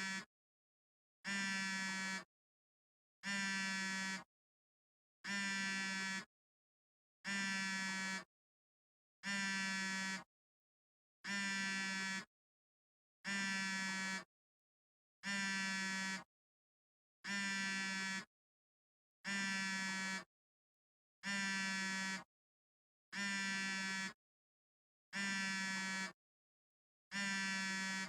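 Smartphone vibrating in a repeating pattern: a buzz about a second long, then a second of silence, over and over at an even pace.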